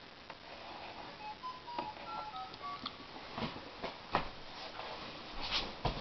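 A brief run of faint, short high notes at changing pitches, then several sharp knocks and bumps as a person moves about at a table.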